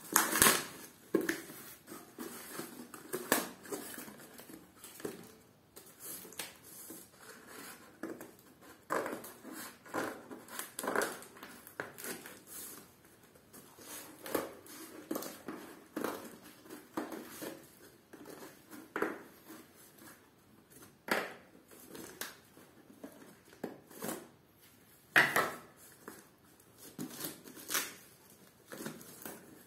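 Cardboard box and stacked paperback books being handled: irregular rustles, scrapes and soft knocks about once a second, a few of them louder.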